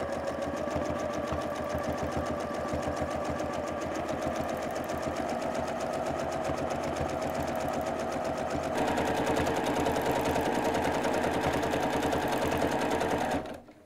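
Domestic sewing machine running at a steady fast stitch during free-motion quilting, its needle strokes coming in rapid, even succession. It runs louder from about nine seconds in and stops abruptly near the end.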